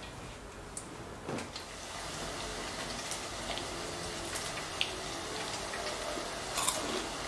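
Freshly fried vegetable tempura crackling: a soft steady hiss with scattered small pops and clicks.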